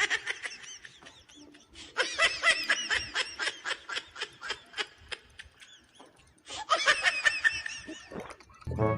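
High-pitched giggling laughter in two long runs of quick syllables. Music with a low beat starts just before the end.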